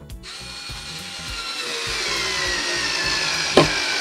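ES EK636S 3.6 V cordless screwdriver driving a screw into a wooden beam: the motor starts a moment in and whines, its pitch sagging slowly as the screw bites deeper into the wood. A single sharp snap about three and a half seconds in.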